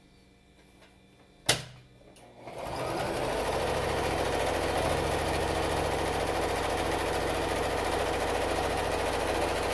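A single sharp click, then about a second later a domestic electric sewing machine starts up and runs steadily, stitching through fabric.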